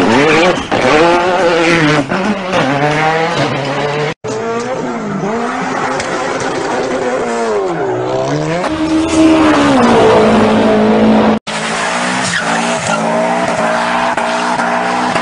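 A drifting car: the engine revs up and down with tyre squeal, in short clips cut together, with sudden breaks about four and eleven seconds in.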